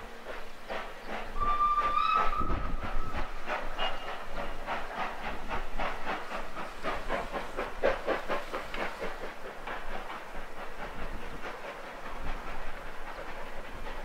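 Beyer-Peacock 2-4-0T tank steam locomotive working a train, its chimney exhaust beating in a steady, even rhythm, with one whistle blast of about two seconds shortly after the start.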